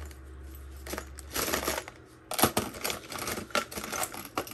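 Costume jewelry clinking and clattering as hands rummage through a box of mixed pieces: a run of light metallic clicks, with the sharpest ones from about two and a half seconds in.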